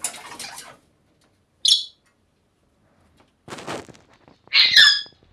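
Parrot calls: a harsh scratchy squawk at the start, a short high chirp about two seconds in, then a rasp and a loud whistled call falling in pitch near the end.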